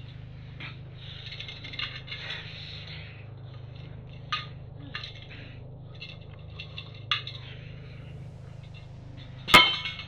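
A drinking glass being handled: scattered small knocks and scrapes over a steady low hum, then one sharp ringing clink near the end.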